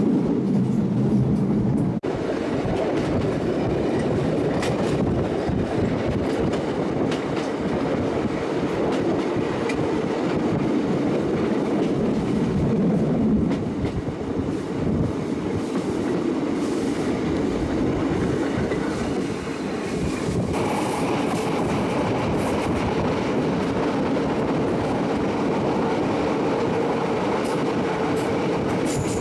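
Diesel passenger train running along the line, heard from its window: a steady rumble of engine and wheels on the rails, changing in tone abruptly about two seconds in and again about twenty seconds in.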